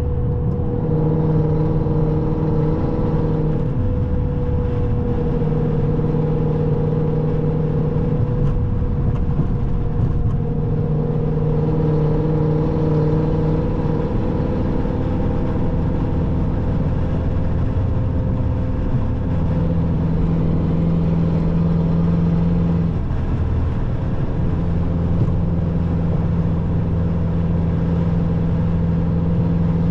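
Chrysler 300C's 5.7L HEMI V8 running under way while the car is driven, a steady engine drone over road rumble. The drone fades and returns several times.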